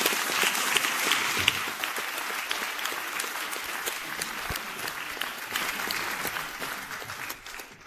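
Audience applauding and clapping as a welcome, loud at first, gradually thinning, and dying away near the end.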